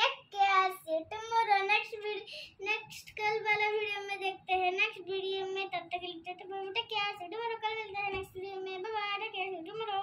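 A child humming a wordless tune in a high voice through a rolled-up paper tube held to the mouth, mostly in held notes.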